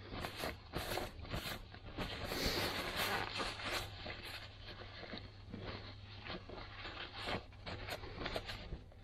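Hands handling small parts and tools: a run of irregular clicks and light knocks, with a longer scraping, rustling stretch about two to four seconds in, over a steady low hum.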